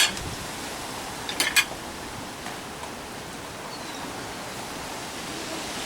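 Steady outdoor background hiss, with one short high-pitched rustle about a second and a half in.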